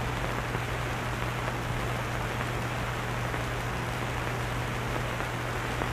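Steady hiss with a constant low hum: the background noise of an old film soundtrack.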